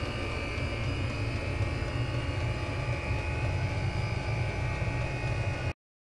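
Chinese diesel air heater running: a steady low hum and rumble from its burner and fan, with a few faint steady tones. It cuts off suddenly near the end.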